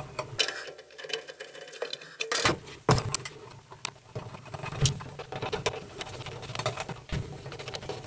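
Irregular small clicks, taps and scrapes of a screwdriver and fingers on a metal bracket as a ground wire is fitted under a retaining screw, with one sharper knock about three seconds in.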